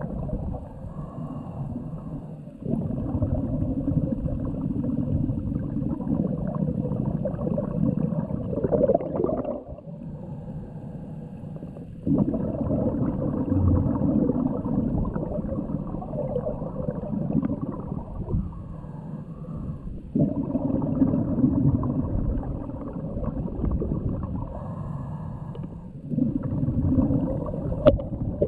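Scuba diver breathing through a regulator, heard underwater: long muffled gurgling stretches of exhaled bubbles broken by short quieter gaps, in cycles of roughly eight seconds.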